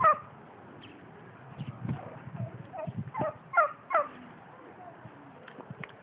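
A turkey gobbling in quick, falling, rattling bursts: once at the start, then several in a row around the middle. A few dull low thumps sound underneath.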